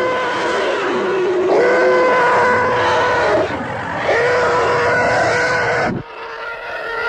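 Screaming, whining aircraft sound effect: a sustained high tone with overtones over a rushing noise. It sags in pitch several times, and about six seconds in it cuts abruptly to a quieter passage.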